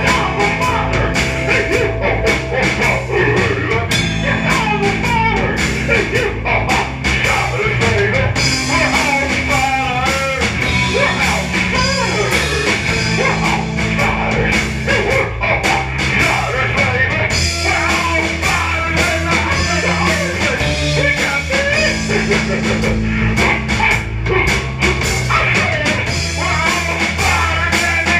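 Live rock band playing: electric guitar, electric bass and drum kit, loud and continuous.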